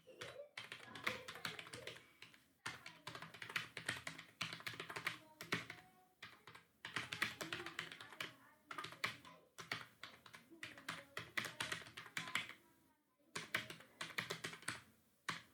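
Fast typing on a computer keyboard: quick runs of key clicks, broken by a few short pauses.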